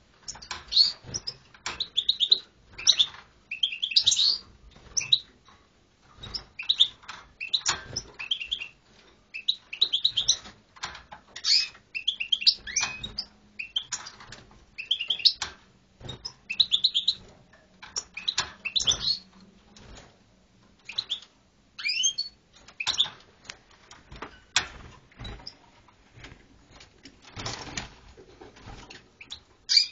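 Small bird chirping in quick, irregular bursts of short high calls, with scratchy clicks between them.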